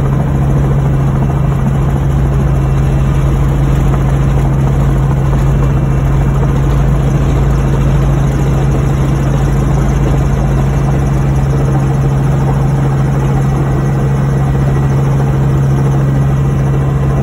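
Tour helicopter's engine and rotor running steadily, heard loud from inside the cabin during the descent onto the helipad: a constant drone with a strong low hum that stays the same throughout.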